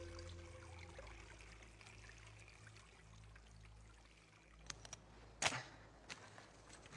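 A faint steady hiss, then a few sharp clicks and one louder crack as dry wooden sticks are handled and laid out by hand.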